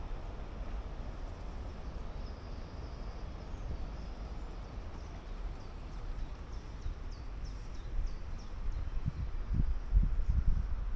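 Outdoor ambience with a steady low rumble and small birds chirping. Near the end come heavier irregular thuds of footsteps on the wooden planks of a footbridge.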